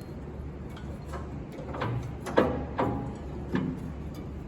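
A few scattered metallic clunks and clicks as the Doall vertical bandsaw's two-range gearbox is worked by hand to shift it into high range, with the loudest knocks about two and a half seconds in, over a low steady hum.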